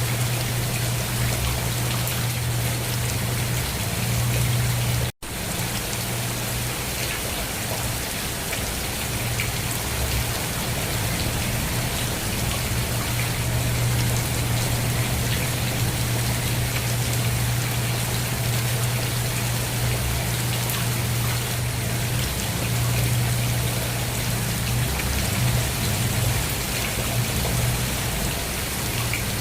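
Steady rain falling and pattering on a surface, with a steady low hum underneath. The sound drops out for an instant about five seconds in.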